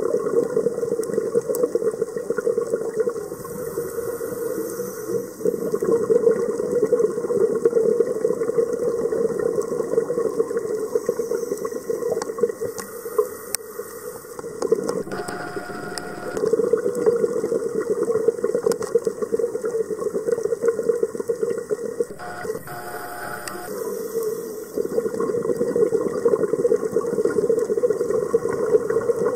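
Scuba diver breathing through a regulator, heard underwater: long stretches of exhaled bubbles gurgling, broken about halfway through and again about three quarters in by shorter, quieter inhalations with a faint tone.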